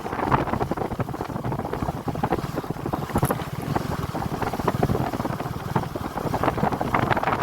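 Wind buffeting the microphone over a KTM 250 Adventure's single-cylinder engine while the motorcycle is ridden.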